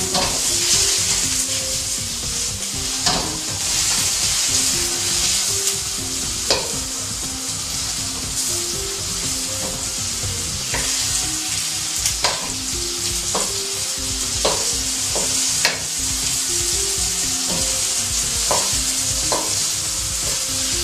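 Tomato and egg stir-frying in a wok: steady sizzling of hot oil, with the spatula knocking and scraping against the pan about ten times as the food is turned.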